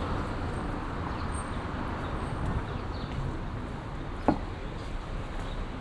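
Outdoor city ambience: a steady low background rumble, with one sharp knock about four seconds in.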